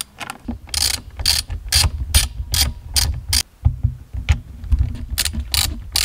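Hand ratchet with an extension clicking as it is worked back and forth, loosening the special-bit airbag retaining bolts behind a steering wheel. The clicks come about two or three a second, with a short break a little past the middle.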